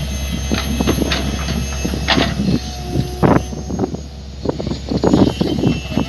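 Mini excavator's engine running steadily under load, with irregular knocks and clanks throughout.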